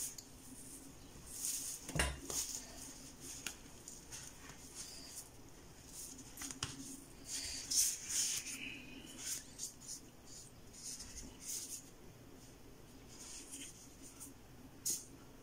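Hands rustling through curly wig hair on a wig head as it is gathered and tied up: soft scratchy rustles on and off, with a dull knock about two seconds in.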